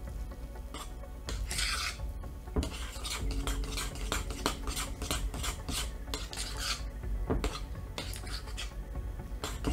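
Spoon stirring and scraping a sticky self-rising-flour and whole-milk dumpling dough in a ceramic mixing bowl, clinking against the bowl in quick repeated strokes, about three a second from a couple of seconds in.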